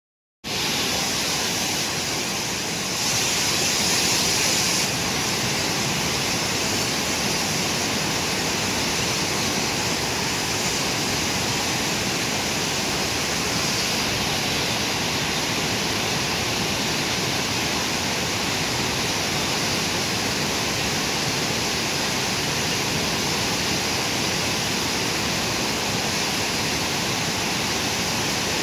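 Flood-swollen, silt-laden river rushing past in a steady loud roar of churning water, swelling briefly a few seconds in.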